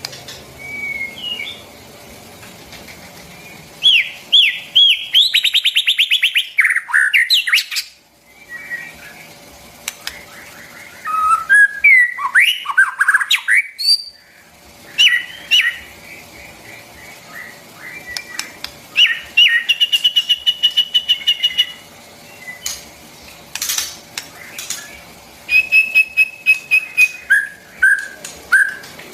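White-rumped shama singing: separate phrases of loud, clear whistles that slide up and down, mixed with fast runs of repeated notes and trills, with short pauses between phrases.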